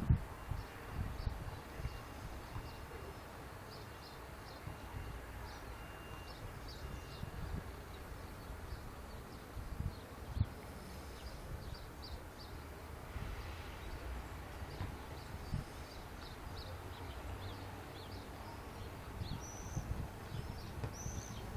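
Outdoor ambience: an uneven low rumble, with faint short high chirps scattered throughout.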